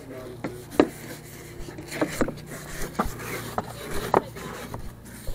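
A cloth rubbing and wiping over the grimy fiberglass hull of a jet ski, with irregular short scrapes and soft knocks as the hand works along it. A steady low hum runs underneath.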